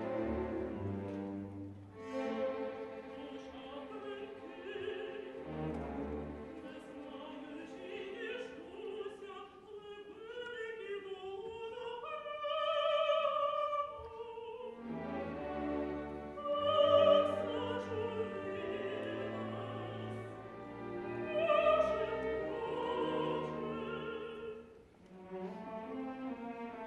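A woman's operatic solo voice singing in Ukrainian over an orchestra led by strings. She swells into loud held notes about halfway through and twice more after that.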